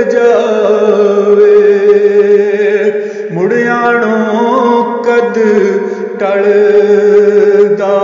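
A man singing Punjabi verse in a chanting style, holding long melodic notes with a wavering pitch, in three drawn-out phrases.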